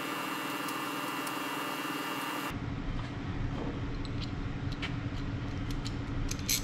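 A steady background machine hum that changes character about two and a half seconds in, with faint small metallic clicks through the second half as the small valve-cover bolts are handled.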